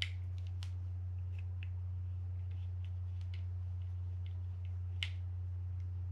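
Small, sharp metal clicks and ticks, scattered irregularly, as a mini screwdriver tip works at the metal bail assembly of a Shimano Baitrunner spinning reel while seeking a screw hole. A steady low hum runs underneath.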